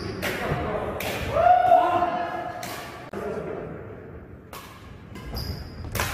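Badminton rally: rackets strike a shuttlecock in sharp cracks about once a second, five times, with brief squeaks of shoes on a wooden court floor. A drawn-out shout-like tone comes about a second and a half in.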